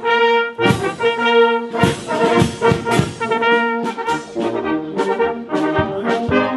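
Marching brass band of tubas, tenor horns and flugelhorns playing a march, with regular drum strokes under the held brass notes.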